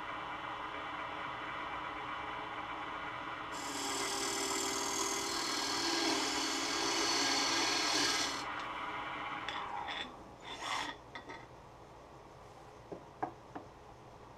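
Turning tool cutting into a spinning wooden disc on a Laguna Revo 12/16 wood lathe, hollowing its centre hole, with a steady scraping hiss that grows louder for about five seconds and then stops. Near the end, with the cutting over, a few light knocks as a part is tried in the bored hole.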